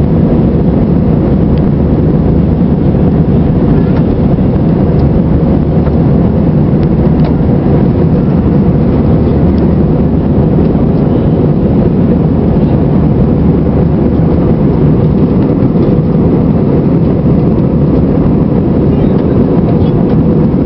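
Steady cabin noise of a jet airliner in flight: the engines and the rush of air over the fuselage heard from a window seat, a constant low drone with a faint steady hum in it.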